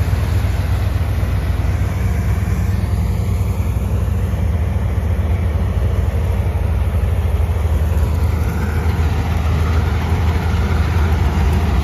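Swaraj 855 tractor's three-cylinder diesel engine running steadily, heard close by, with a combine harvester working alongside. A deep, even engine hum with a broad mechanical hiss over it and no breaks.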